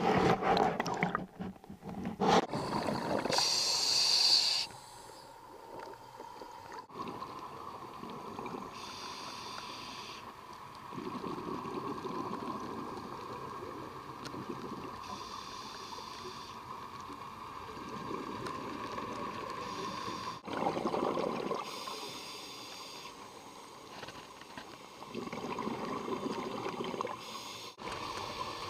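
Water splashing over the camera at the surface for the first few seconds. Then, underwater, a scuba diver's regulator breathing: a bubbling exhale about every six seconds, alternating with rushing inhales.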